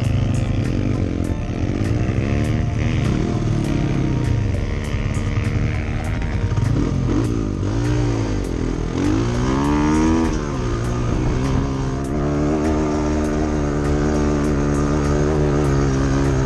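Dirt bike engine heard from the rider's seat, revving up and falling back repeatedly as the throttle is worked on a climbing dirt trail. About two-thirds of the way through, after a high rev that drops off sharply, it settles into a steady pull.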